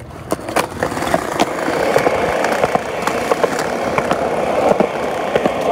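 Skateboard wheels rolling on smooth concrete: a steady rolling rumble that builds up over the first second and then holds, with scattered sharp clicks.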